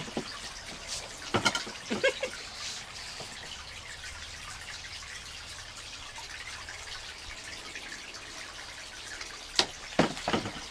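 A baby's wet mouth clicks and smacks as she chews and sucks on a bottle nipple. They come in short clusters about a second and a half in and again near the end, over a low steady car-cabin rumble.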